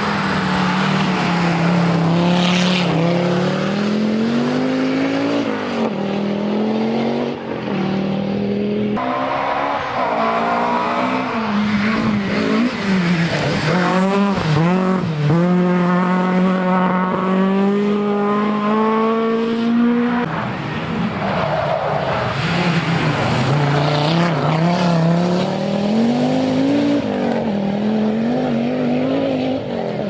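Historic rally cars, among them an Audi Quattro and a Ford Escort, driven hard on a special stage one after another. The engine note climbs steeply and drops back repeatedly as they change gear and lift for corners, and is held high and rising for several seconds in the middle.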